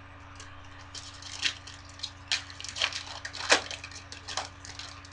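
Foil trading-card pack wrapper crinkling as it is handled and pulled open, a run of sharp crackles.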